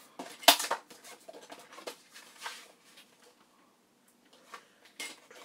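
Card-stock file folder being handled on a tabletop paper trimmer: one sharp hit about half a second in, then softer paper rustling and sliding.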